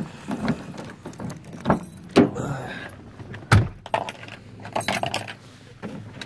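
Keys rattling in a pickup truck's door lock, then the door unlatching and swinging open and someone climbing into the cab: a string of sharp knocks and clunks, the loudest about three and a half seconds in. The engine is not running.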